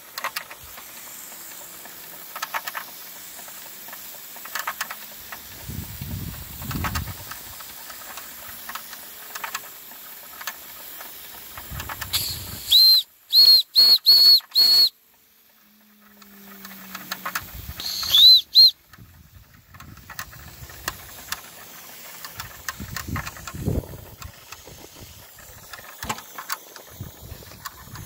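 Wilesco D21 model steam engine's boiler whistle blown in short, shrill toots: a quick run of about five roughly halfway through and two more a few seconds later, each swooping up in pitch as it opens. Under them is the steady hiss of escaping steam.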